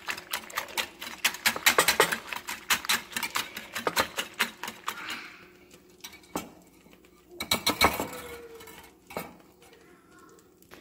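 Wire whisk beating eggs with chopped vegetables in a bowl: rapid, even clicking of the whisk against the bowl that fades out about five seconds in. A few scattered knocks and taps follow.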